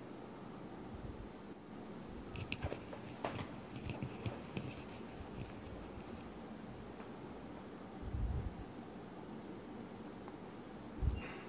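Jitsui industrial sewing machine stitching through layered bag fabric, a steady run of needle strokes with a few faint clicks and two short low thumps. A thin high-pitched whine stays constant throughout.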